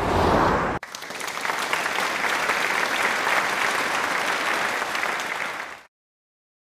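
A motorcycle passing close by, cut off abruptly less than a second in, then a crowd applauding for about five seconds, ending suddenly.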